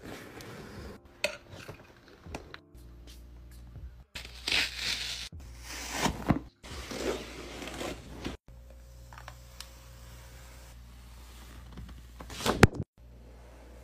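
Unboxing handling of an iMac's cardboard box and paper protective wrap: sliding, rustling and crinkling in several short bursts. Near the end a single sharp knock is the loudest sound.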